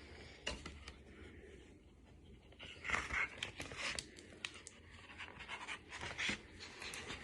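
Soft rustling and scattered light clicks of a paper picture book being handled and its pages turned.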